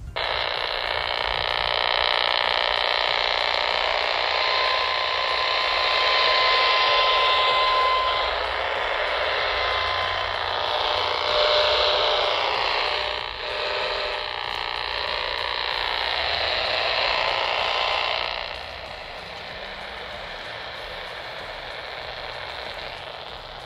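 Portable AM transistor radio's speaker putting out loud static: it is picking up the RF interference at the house's electric meter and main power feed. The noise drops noticeably about three-quarters of the way through, and faint whistling tones sound in it early on.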